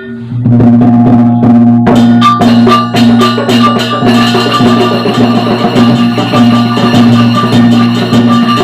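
Sasak wayang gamelan ensemble starting a gending, with struck percussion in a steady repeating pattern over a held low tone and a bright note repeating above it. It comes in a moment after the start and fills out about two seconds in.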